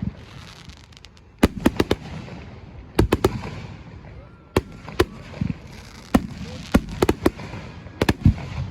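Fireworks bursting: clusters of sharp bangs, two to four at a time, about every second or two, over a steady background murmur.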